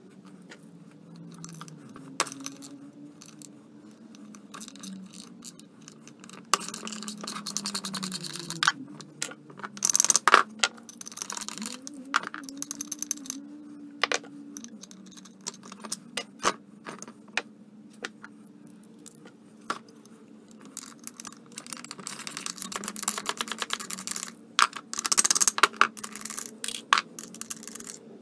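Metal hand tools and small steel parts clicking, clinking and scraping on a snowmobile primary clutch as its weight pins are taken out. There are clusters of sharper metallic clanks about 10 seconds in and again from about 22 to 27 seconds, over a steady low hum.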